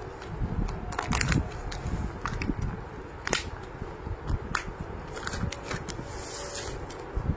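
Plastic packaging on folded suit-fabric packets crinkling and rustling as the packets are handled and shifted, with irregular sharp crackles and a brief swish of plastic sliding about six seconds in.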